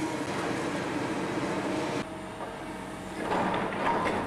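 Hydraulic demolition excavators at work: diesel engines running under the clatter and scrape of concrete rubble and metal being torn down. A louder burst of crashing debris comes about three seconds in.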